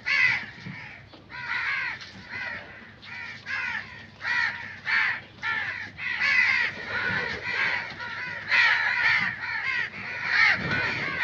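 Crows cawing, harsh calls coming one after another, often two in a second, with some overlapping as several birds call.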